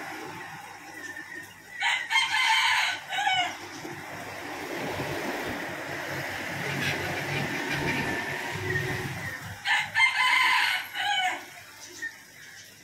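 A rooster crowing twice, about eight seconds apart, each crow about a second and a half long and ending on a falling note, over a steady background hiss.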